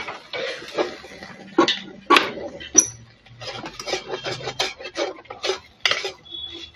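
Steel spatula scraping and tapping against a non-stick wok while stirring minced soybean filling: a rapid run of clicks and scrapes, about three a second in the second half.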